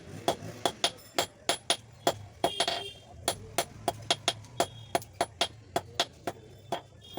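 Blacksmith's hand hammer striking iron on an anvil in a steady rhythm, about three ringing blows a second, with a short break about two and a half seconds in.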